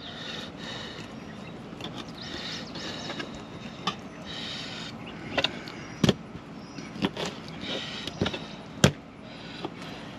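A knife trimming redfish fillets on a table: repeated short scraping strokes, with a few sharp knocks scattered through.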